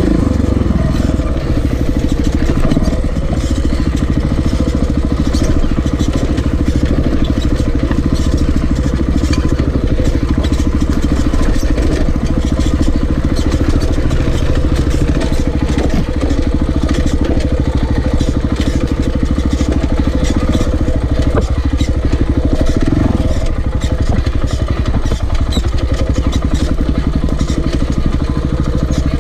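Single-cylinder four-stroke engine of a KTM 690 Enduro dirt bike running steadily under way on a dirt trail, heard from a camera mounted on the bike, with a brief rise in revs about three quarters of the way through.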